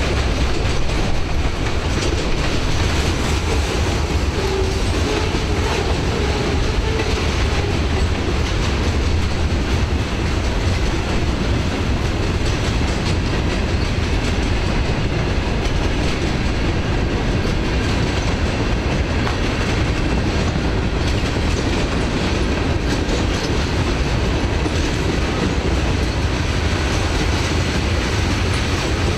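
Mixed freight train of tank cars, autoracks, gondolas and covered hoppers rolling steadily past, steel wheels running on the rails with an even, low rumble.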